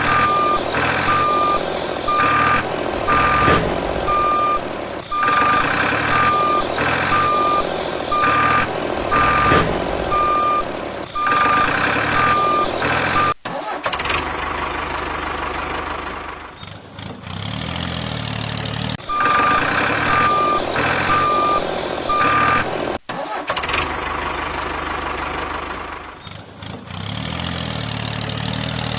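Vehicle reversing beeper sounding a little over once a second over a running truck engine. The beeping stops about halfway, comes back briefly, then stops again while the engine keeps running.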